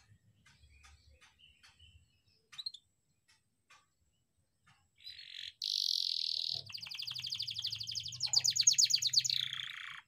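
Young domestic canary singing: scattered soft chirps, then about halfway a loud buzzy note and a long, rapid rolling trill that stops just at the end.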